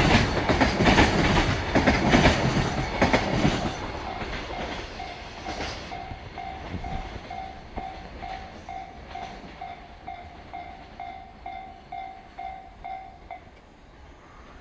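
Freight train's container wagons clattering over rail joints, fading away after about three seconds as the train passes. A level crossing warning bell then rings on, about two dings a second, stopping shortly before the end.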